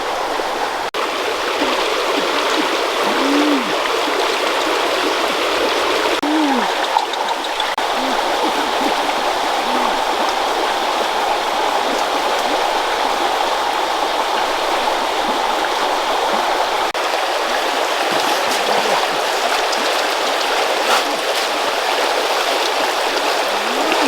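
Steady rush of a flowing forest stream. A few short, low rising-and-falling calls sound over it in the first ten seconds.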